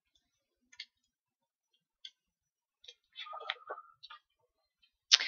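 Faint, scattered small clicks and ticks with a brief faint squeak about three and a half seconds in, and a short louder hiss right at the end.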